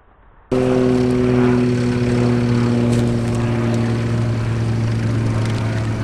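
Aircraft engine droning overhead, starting suddenly about half a second in and then holding steady while its pitch slowly falls.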